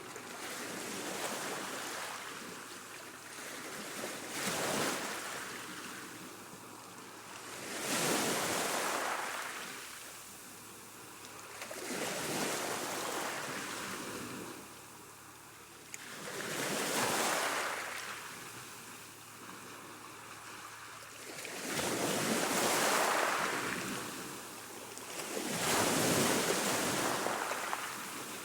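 Choppy sea washing in waves, each wave rushing up and falling back every few seconds, with the biggest surges about eight, seventeen, twenty-three and twenty-six seconds in.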